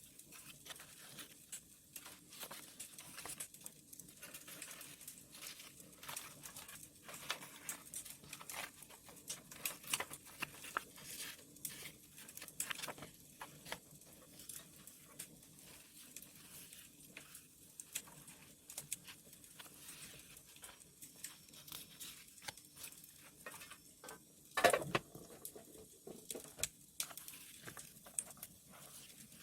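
Wood fire crackling with many small sharp pops, together with paper being handled, crinkled and torn for journaling. A louder paper crinkle comes near the end.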